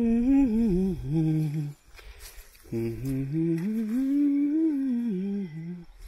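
A man humming a tune with his mouth closed, in two long gliding phrases with a short break about two seconds in.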